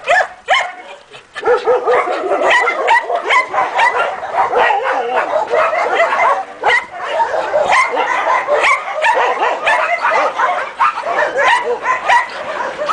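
Several dogs barking and yelping at once. A couple of single sharp barks come first, then from about a second and a half in a dense, unbroken chorus of overlapping barks and yips at different pitches.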